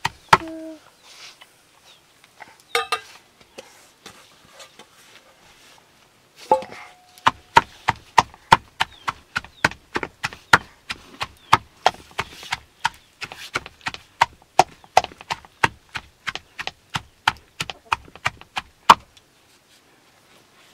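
Pounding food in a dark metal pan with the end of a wooden-handled tool: sharp, regular knocks at about two to three strikes a second. There are a few strikes at the start, a pause of several seconds, then a long steady run that stops about two seconds before the end.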